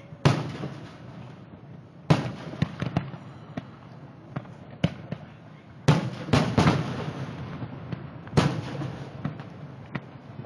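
Aerial firework shells bursting: about six sharp booms, three of them close together around six seconds in, each followed by a rumbling tail, with smaller pops and crackles in between.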